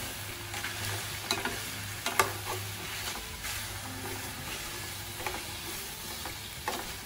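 Pieces of rice-field frog meat sizzling in a steel frying pan while a slotted metal spatula stirs them, scraping and clicking irregularly against the pan. The sharpest click comes about two seconds in.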